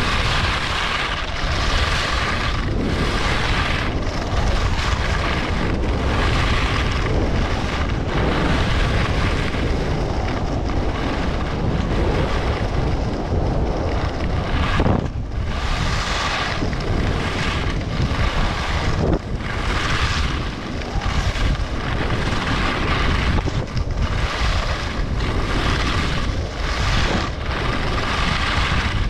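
Wind buffeting the microphone as a steady low rumble, under skis scraping across snow in rhythmic turns: a hiss that swells and fades about every second and a half.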